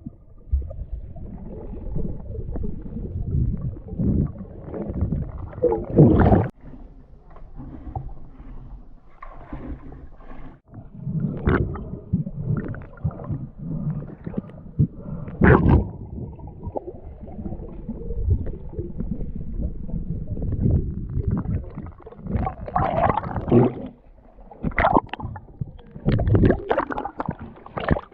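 Water sloshing and gurgling around a camera at or just under the water surface, with irregular knocks and splashes every few seconds.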